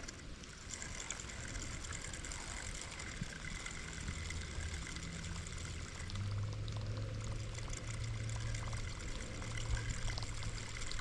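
Rain falling on the lake surface, an even hiss of water, with a steady low hum joining about halfway through.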